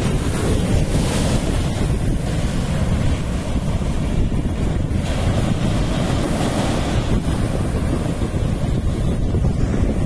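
Ocean surf breaking and washing up the sand, with wind buffeting the microphone as a steady low rumble. The hiss of the surf swells about a second in and again around six seconds in.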